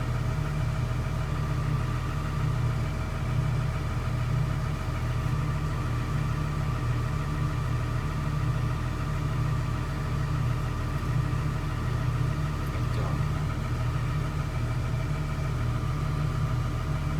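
Doosan DX140W's six-cylinder diesel engine idling steadily while a scan tool runs an injector test, starting with injector number 1.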